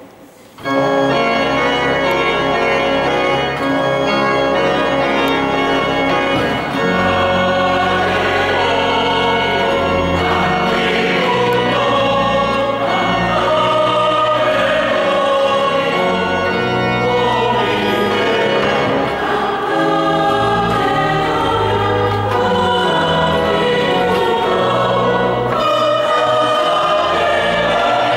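A mixed choir of men's and women's voices sings a sacred piece in a reverberant church. It starts about half a second in, over sustained low organ notes.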